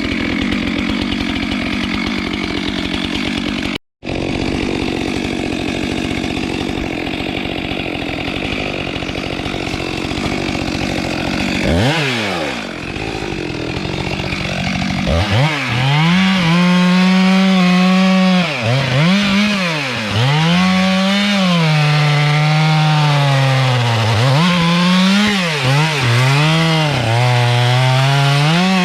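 Two-stroke chainsaw running hard while cutting timber. Around twelve seconds in the engine falls off and picks up again. After that its pitch rises and falls again and again as the chain bogs down in the wood and frees up.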